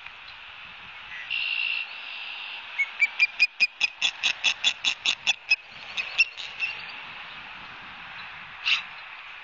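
An osprey calls in a rapid series of about fifteen sharp, high chirps, roughly five a second, typical of an osprey's alarm call. The series starts with a short harsh note and ends with a single louder chirp.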